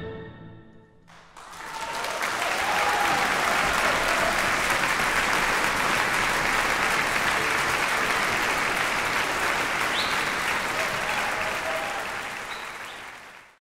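The last orchestral chord dies away in the hall's reverberation, then about a second in the concert-hall audience breaks into steady applause, which fades out near the end.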